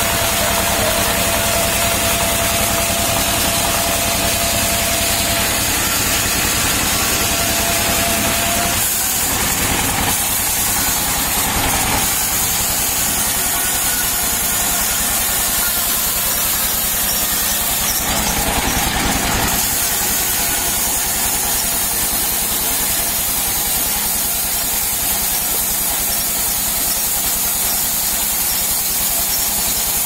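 Single-cylinder diesel engine running steadily with a fast low chugging, driving a sawmill band saw as it cuts palm trunk into slabs. A thin steady whine drops out about a third of the way in, and the cutting noise swells briefly a few times.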